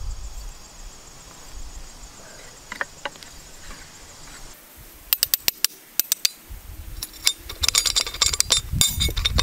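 Metal clinking and rattling as a large open-end wrench works a loosened blade-retaining nut on a Bush Hog rotary cutter's blade carrier. A quick run of sharp clicks comes about halfway through, then denser rattling near the end. Crickets chirp faintly before the clinking starts.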